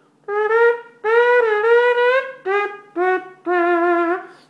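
A horn-like wind instrument playing a short melodic phrase of about six notes with brief gaps between them; the later notes sit lower and the last one is held longest.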